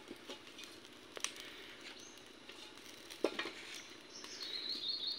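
A few sharp metal knocks and clinks as a wok is set and shifted on an outdoor wood-fire stove. Near the end a bird chirps in a quick, high trill lasting about a second.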